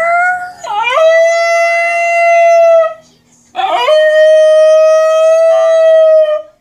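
Basenji dog howling: a howl that breaks and dips in pitch near its start, then holds steady for about two seconds; after a short pause, a second steady howl lasts about three seconds.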